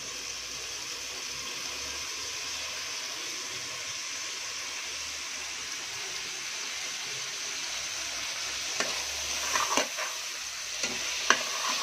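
Chopped tomatoes and sliced onions frying in hot oil and ghee in a pressure cooker, a steady sizzle. From about nine seconds in, a spatula scrapes and knocks against the pan as the mixture is stirred.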